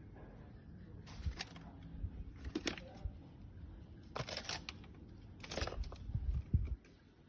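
Packaging being handled: four short crinkling rustles about a second apart, with a few low thumps of handling near the end.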